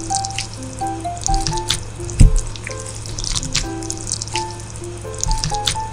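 Background music: a light melody of short notes at changing pitches over a steady low hum, with many short clicks and one loud low thump about two seconds in.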